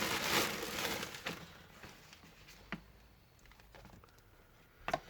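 Plastic packaging crinkling as packets of engine gaskets are handled, dying away after about a second and a half, followed by a few light clicks and knocks of parts being moved.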